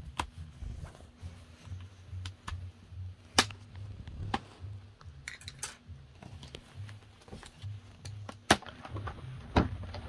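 Plastic snap clips of a Dell Inspiron 15 5502 laptop's bottom cover clicking loose as it is pried up with a pry tool and a plastic card. It comes as an irregular string of sharp clicks and snaps, loudest about three and a half and eight and a half seconds in.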